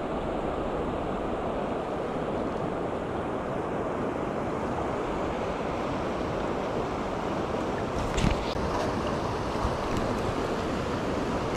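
Shallow river riffle rushing steadily over stones around the wading angler's legs, heard close to the water surface. A brief knock or clatter cuts through about eight seconds in.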